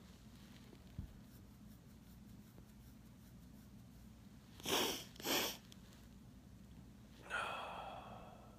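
A person breathing close to the microphone: two quick, sharp breaths through the nose about half a second apart, then a long sighing exhale that fades away. A soft thump comes about a second in.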